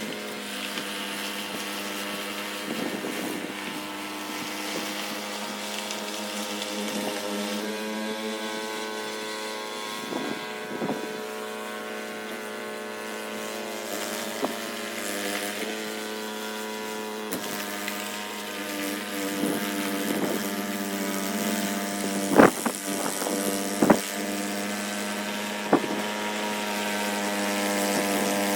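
Snowblower engine running steadily at a constant speed, with a few sharp knocks in the last few seconds.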